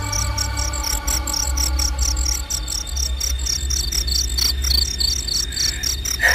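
Crickets chirping in a steady, rapid rhythm of about five chirps a second, over a low steady hum.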